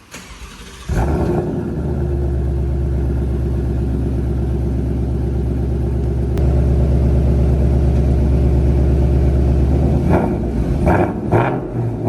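2021 Mustang Mach 1's 5.0 L V8 firing up about a second in through a newly fitted Borla ATAK cat-back exhaust, then running at a loud, steady idle.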